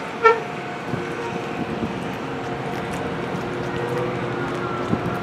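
Steady mechanical hum holding several fixed tones, with a short, sharp pitched chirp about a quarter of a second in and a few soft thumps later on.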